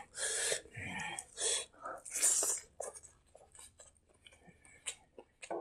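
Close-miked eating sounds from a person eating rice and herbs by hand: a few breathy puffs through the mouth or nose in the first two and a half seconds, then soft, scattered wet chewing and lip clicks.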